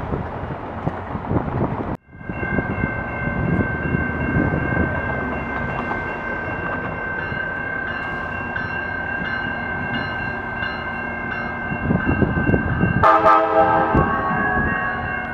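Tri-Rail commuter train approaching along the platform, with a steady rumble and a high steady whine. A short horn blast comes near the end.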